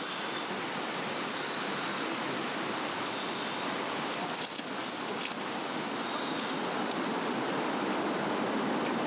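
Swedish torch (a cross-cut cedar log) burning on a fire stand with a steady rushing of flames. Patches of hiss come and go, and there is a faint crackle about four and a half seconds in.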